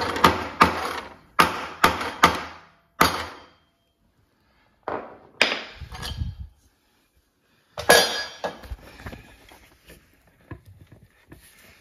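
Hammer blows on a long metal drift rod set against the bottom bracket axle of a Wahoo KICKR BIKE, trying to knock it out. The axle is stuck in its bearing cup. There is a quick run of about six sharp, ringing strikes, then a few more spaced-out ones.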